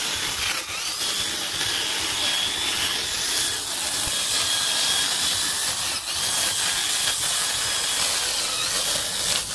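Corded electric drill spinning a small abrasive sanding disc against carved wood: a steady hissing scrape over the thin whine of the motor.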